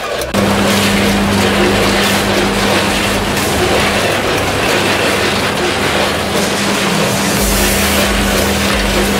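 Large vertical packing machine running: a steady, loud mechanical noise over a constant low hum, with a low pulsing coming in near the end.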